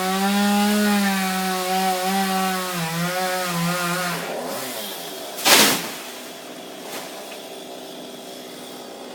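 Two-stroke chainsaw running at high revs while cutting palm wood, its pitch dipping and recovering under load, then dying away about four seconds in. A short, loud crash follows about a second later.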